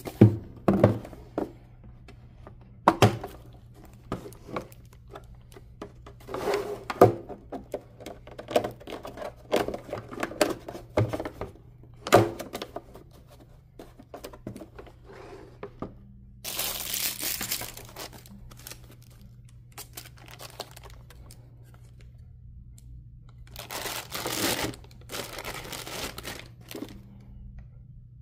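Hard plastic gun case being handled and opened, with a run of sharp clicks and knocks. Later come two longer spells of plastic wrapping crinkling and tearing as the revolver and its parts are unwrapped, one about halfway through and one near the end.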